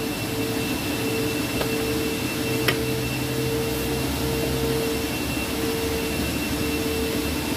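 Steady machine hum with a constant whine. A faint click about one and a half seconds in and a sharper one near the middle come as the plastic clips of the air filter housing are undone by hand.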